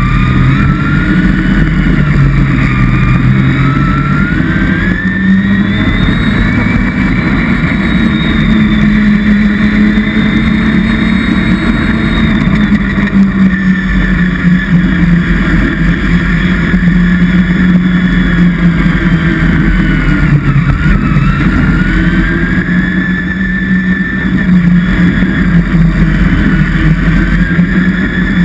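A vehicle engine running continuously, its pitch slowly rising and falling as the throttle changes.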